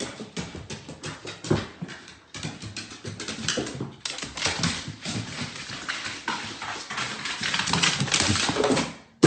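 A dog scrabbling about, its claws clicking and tapping in quick, irregular strokes that grow louder near the end.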